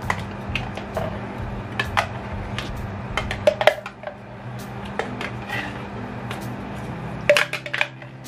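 A metal spoon scraping and clinking inside a blender jug and knocking against it and the saucepan rim as the blended contents are scraped out: irregular sharp clinks, with a cluster of louder knocks about three and a half seconds in and again near the end. A low steady hum runs underneath and stops shortly before the end.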